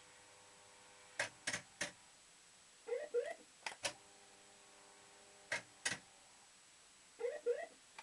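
Maygay Moon Bug fruit machine in play. Sharp clunks of its reels and mechanism come in a few groups: three in quick succession, then pairs. A short burst of electronic chirping sounds about three seconds in and again near the end, each followed by a faint steady hum.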